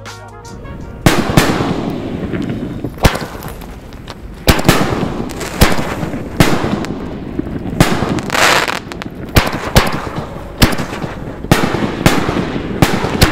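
Geisha 6-inch XXL canister shell fireworks launching and bursting: about a dozen sharp, loud booms at irregular intervals, each trailing off in a rolling echo.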